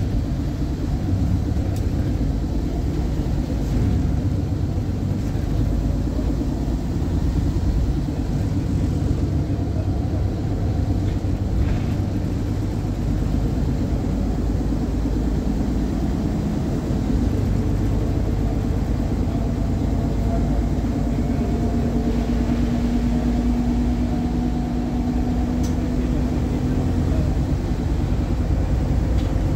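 Volvo B7RLE bus's rear-mounted 7-litre six-cylinder diesel, heard from inside the passenger saloon, running with a steady low rumble. A humming note comes in about halfway through and holds for several seconds.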